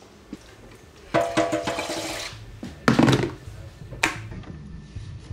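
Electric kettle being put on: a second-long rush of noise, then a solid knock as it is set on its base about three seconds in, and a sharp click of its switch about a second later.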